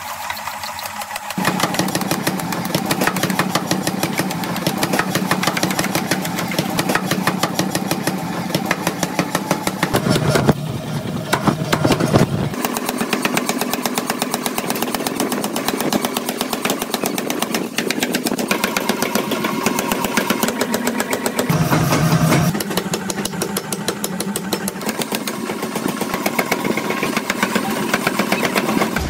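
Mechanical power hammer pounding a glowing hot steel billet on the anvil die in rapid, repeated blows, with the machine's motor running under them.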